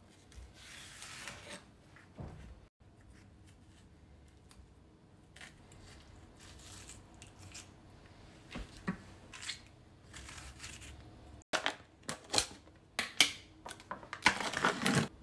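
Soft sounds of a cucumber being prepared on a wooden cutting board: a knife halving it and the seeds scraped out, with a few light knocks. Near the end come louder crinkly tearing sounds as the foil seal is peeled off a tub of plant-based cream cheese.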